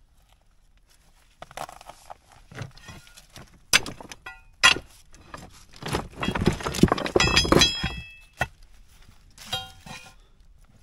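Loose rocks being pulled from a rubble pile and set down, knocking and clattering against each other with a few sharp, ringing clinks. The clatter is densest from about six to eight seconds in.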